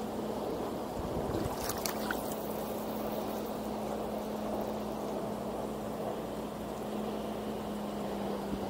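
Motorboat engine running with a steady hum over the sound of water around a kayak; a few sharp knocks come about one and a half to two seconds in.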